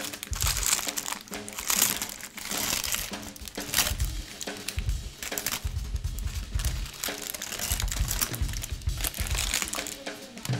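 Baked parchment paper crinkling and rustling as a salmon en papillote parcel is unfolded and pulled open by hand, over background music.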